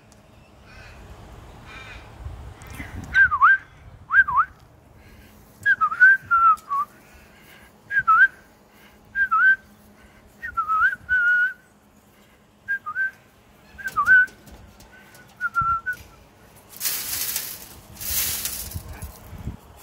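A series of short whistled notes, about one a second, each dipping in pitch and coming back up. Near the end, two harsh noisy bursts about a second long each.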